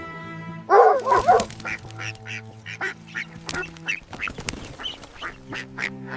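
Duck quacking: a loud burst of quacks about a second in, then a run of short single quacks.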